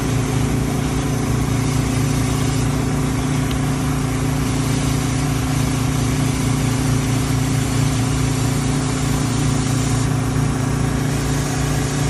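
Engine-driven air compressor running steadily to blow out an underground lawn sprinkler system for winter, with a steady hiss of air and mist from a sprinkler head.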